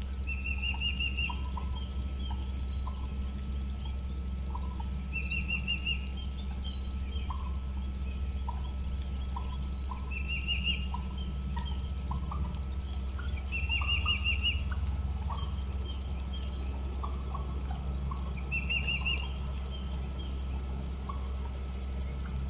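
A bird calling: five short, rapid rattling trills, one every four to five seconds, with scattered soft single chirps between them over a steady low hum.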